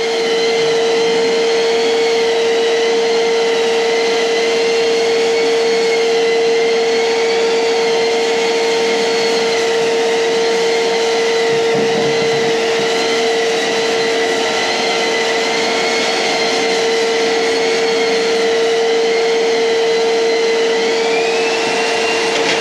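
Long-reach 'giraffe' drywall sander running continuously with its dust extraction: a loud, steady motor hum with a higher whine that wavers slightly in pitch as the sanding head is worked over the wall.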